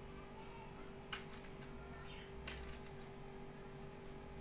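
Quiet knife work on eggplants over a stainless steel pot of water: small clicks, with two sharper metallic clinks, one about a second in and another a second and a half later, over a faint steady hum.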